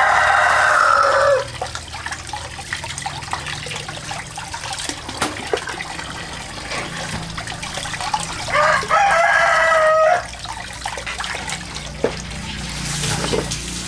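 A rooster crowing twice, each crow about a second and a half long: once right at the start and again about eight and a half seconds in, the second ending on a falling note. Faint clinks and a little running water can be heard between the crows.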